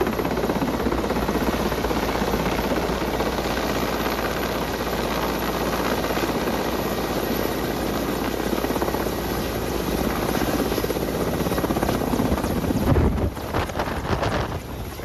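Helicopter running close by, its rotor beating in a fast, steady rhythm. About 13 seconds in the sound drops and turns gusty, with wind buffeting the microphone.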